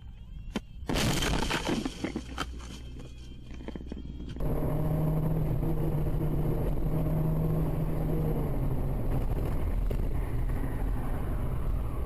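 A car collision about a second in: a sudden loud crash that dies away over the next few seconds. From about four seconds in, steady engine and road noise inside a moving car's cabin, with a low steady engine hum.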